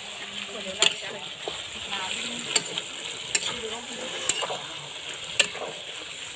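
Vegetables sizzling in a metal wok as a metal spatula stirs them, with a few sharp clinks of the spatula against the pan.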